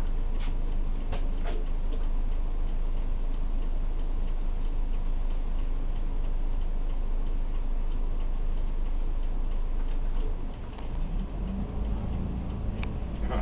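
Bus cabin with the diesel engine idling at a stop and a regular ticking, typical of the turn-signal relay. About ten seconds in the engine note changes as the bus gets ready to pull away.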